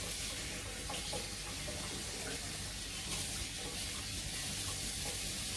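Kitchen tap running steadily into a stainless steel sink as hands are washed under the stream.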